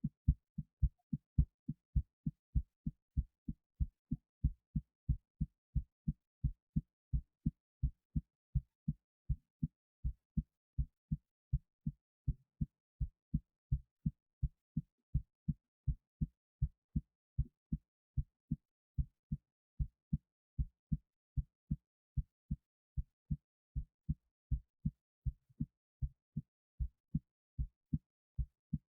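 Human heartbeat recorded close against the chest: a steady, even rhythm of low thumps.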